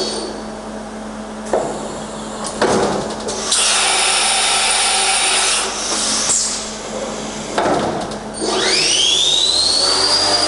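Leadwell VMC-40 vertical machining centre running a test program, with a few sharp clunks and a couple of seconds of loud hissing rush. About eight seconds in, the spindle whine rises steeply and levels off as the spindle speeds up from 3000 to 6000 RPM.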